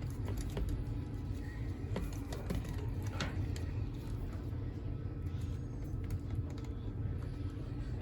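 Small, scattered plastic clicks and scrapes as a retaining clip is worked loose from a toy parrot's hard plastic shell, over a steady low hum.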